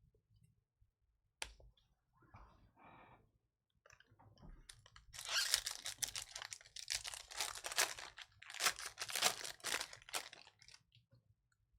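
Plastic-foil wrapper of a baseball card pack being torn open and crumpled. After a sharp click and light rustling, a dense crinkling crackle comes in bouts from about four and a half seconds in until near the end.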